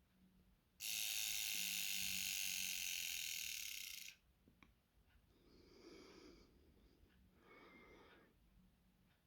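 Lantex wristwatch alarm buzzing: a high electronic buzz that starts about a second in, holds steady for about three seconds and cuts off suddenly. It is followed by a faint click and two much fainter, softer noises.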